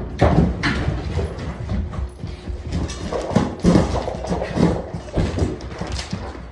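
Rottweilers' paws and claws clattering on a hardwood floor as the dogs walk in, a run of quick irregular clicks and thuds, with a sharp knock at the start.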